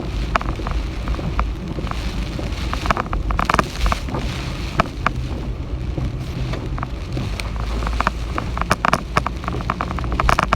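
Typhoon rain and wind: heavy rain over a steady low rumble, with many sharp drops striking a nearby surface, coming thickest a few seconds in and again near the end.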